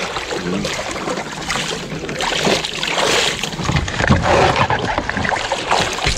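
Shallow seawater splashing and sloshing around a fishing kayak's hull as a man climbs aboard from the water, with water dripping off his feet.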